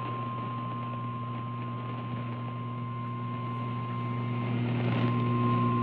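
Weather radio audio: a steady electrical hum and static, with one thin steady tone near 1 kHz running under it, typical of the NOAA Weather Radio 1050 Hz warning alarm tone sent ahead of a warning message. The hum and static grow louder near the end.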